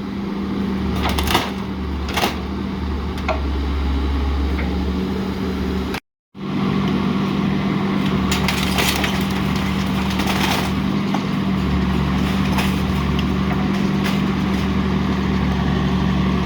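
Engine running steadily with a low hum while scrap is unloaded from a work truck's bed by a junkyard machine, with scattered metallic clanks and knocks. The sound cuts out completely for a moment about six seconds in.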